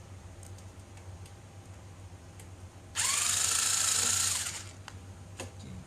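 Cordless electric screwdriver running in one loud burst, its pitch rising and then holding for about a second and a half before winding down, as it backs out a screw holding the faulty cooling fan in the mining machine. A few small clicks follow.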